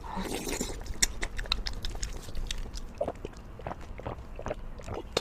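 Close-miked chewing of a person eating spicy braised pork, a steady run of small, sharp, wet mouth clicks.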